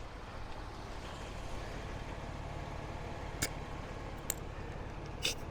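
Steady low vehicle engine hum, with a couple of sharp clicks and a brief hiss near the end, as a tire pressure gauge is pressed onto a valve stem.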